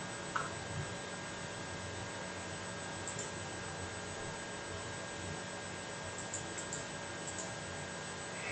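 Steady electrical hum over a faint even hiss, with a few faint clicks.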